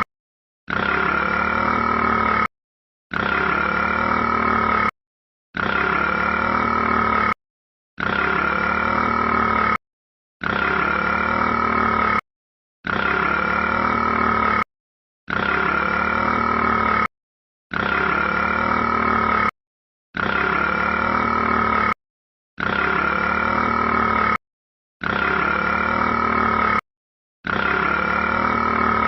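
A rat's burp, looped as an identical recording: each take lasts about two seconds and cuts off sharply into a brief silence before starting again, about twelve times.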